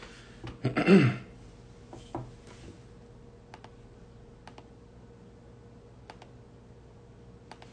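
A handful of faint, irregularly spaced clicks, as from a hand working a small device, over a steady low hum. A short vocal sound comes about a second in.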